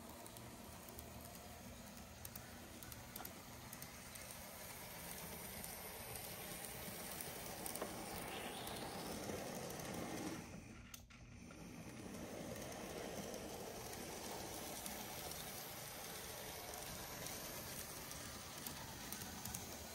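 Märklin 88250 Z-scale ETA 150 railcar model running on its track: a faint, steady whir and rattle of the small motor and wheels. It grows louder toward the middle, drops out briefly about eleven seconds in, then carries on.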